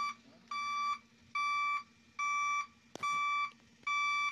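A vehicle's electronic warning beeper sounding one steady high tone in evenly spaced beeps, each about half a second long, a little faster than once a second. A single sharp knock comes about three seconds in.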